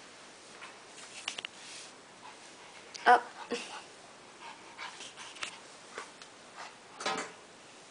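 Shih tzu puppy giving short, high yips: the loudest about three seconds in, another soon after, and one more near the end. Small clicks come in between.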